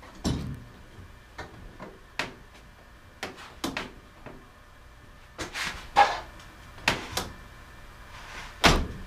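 Irregular knocks and clunks from a homemade lever torque wrench, a long wooden board with a steel drive bar and socket, being worked to tighten a large bolt. There are about ten sharp knocks, the loudest a little past halfway and near the end.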